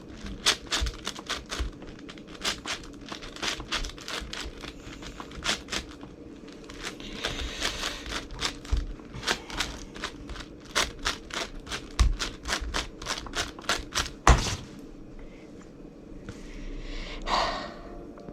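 A 10x10 Rubik's cube being turned one-handed: a quick run of sharp plastic clicks and clacks, several a second. About fourteen seconds in there is a single thump, and the clicking stops.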